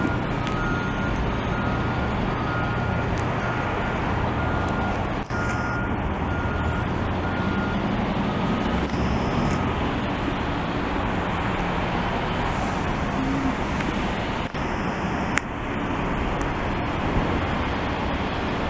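Larue Beluga loader-mounted snowblower running steadily on a CAT 980K wheel loader, with the hard rush of its engine and blower casting snow. For about the first half, a backup alarm beeps over it.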